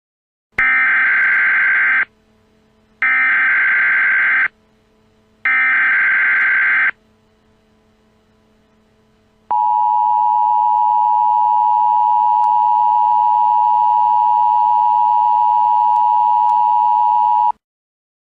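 Emergency Alert System tones: three loud bursts of SAME digital header data, each about a second and a half long, then after a short pause the steady two-tone EAS attention signal (853 and 960 Hz) held for about eight seconds.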